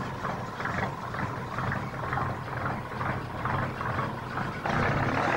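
Old AEC recovery lorry's diesel engine running, with a rhythmic clatter about three times a second; it gets louder about five seconds in.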